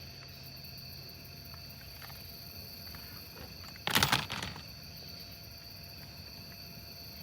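Crickets chirring steadily in a high, even drone. About four seconds in comes one short, loud burst of noise lasting about half a second.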